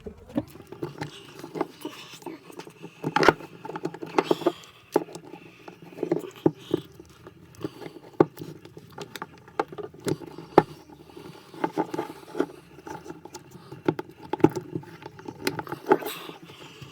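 Irregular clicks, knocks and scraping as the metal spring clip of a Lada Vesta door check is squeezed hard by hand to clamp it shut.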